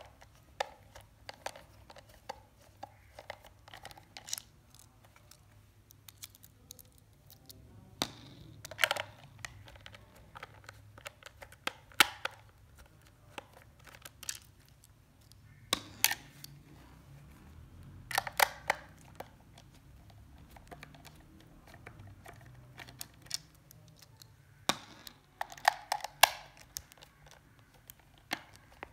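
Small precision screwdriver working screws out of a plastic meter case: scattered sharp clicks and brief scraping turns every few seconds.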